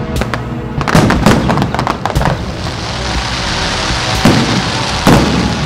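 Festive aerial firework shells bursting: a quick cluster of bangs about a second in, more around two seconds, a crackling hiss in the middle, and two single bangs near the end.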